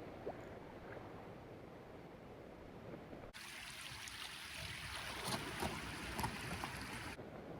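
Faint wash of sea water along the shore. About three seconds in it turns brighter and hissier, with scattered small splashes or ticks, and it cuts off suddenly near the end.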